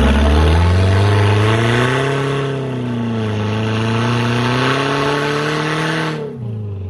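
Off-road truck engine revved hard and held at high revs for about six seconds, wavering slightly, as its big mud-terrain tyres spin in deep snow, then dropping off near the end.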